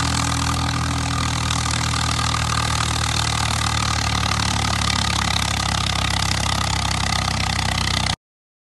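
Swaraj 855 tractor's three-cylinder diesel engine running steadily under load as it hauls a heavily loaded trolley. The sound cuts off abruptly shortly before the end.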